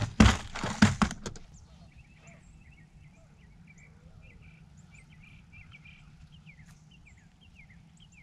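A few loud knocks and clatters of gear being handled on a boat deck in the first second or so. Then small birds chirp and twitter faintly and repeatedly over a low steady hum.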